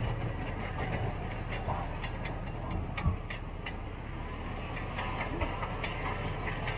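Caterpillar D6T XL bulldozer working brush: a steady low diesel rumble under a rapid, irregular clanking of its steel tracks, with a heavier knock about three seconds in.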